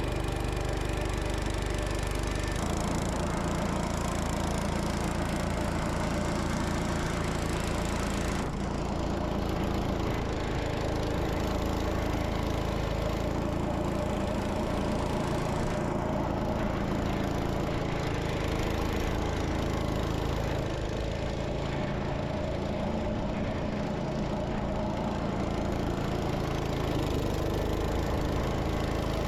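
Gravely Commercial 10 walk-behind tractor's Kohler engine running steadily under load while its snow blower attachment chews through about six inches of snow, the engine's drone mixed with the steady rush of the blower throwing snow.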